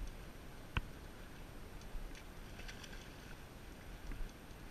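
Steady low rumble of flowing river water around a wading angler, with a single sharp click about a second in.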